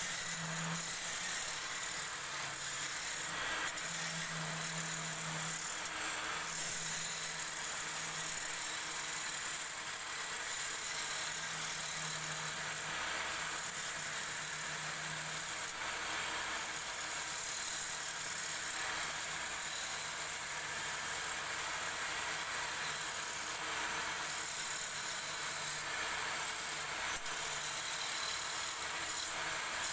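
Belt-driven wood lathe running steadily while a hand-held turning chisel cuts a spinning wooden bed leg, giving a continuous hiss of shavings over a low hum that comes and goes.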